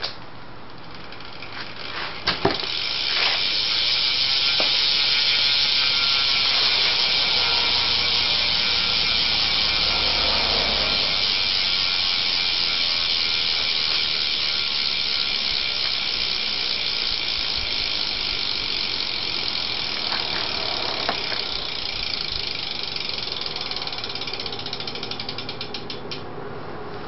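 Odyssey Quartet rear cassette hub on a BMX bike freewheeling. A few clicks about two seconds in as the wheel is spun by hand, then the pawls give a fast, steady ratcheting buzz that slowly fades as the wheel coasts down.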